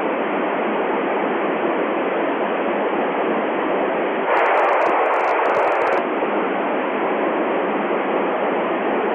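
Steady FM radio hiss from a receiver tuned to the LAPAN satellite's 435.871 MHz FM downlink, with no voice coming through the repeater. The hiss gets a little louder for a couple of seconds in the middle.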